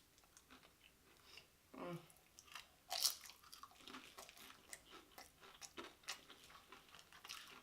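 A bite into a loaded tortilla chip, with one sharp crunch about three seconds in, then crisp, crackling chewing of nacho chips.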